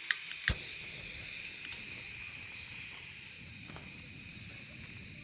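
Insects, likely crickets, trilling steadily at night over a soft hiss, with two sharp clicks just after the start.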